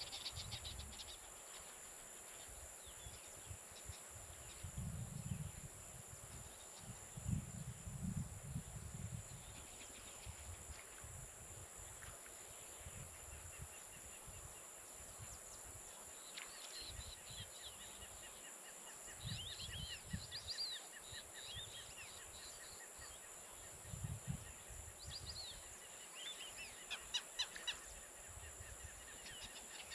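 Dusk ambience on an open savanna wetland: a steady high-pitched drone of insects, with birds calling now and then from about the middle and a quick run of repeated calls near the end. Low gusty rumbles come and go, the strongest about a quarter of the way in.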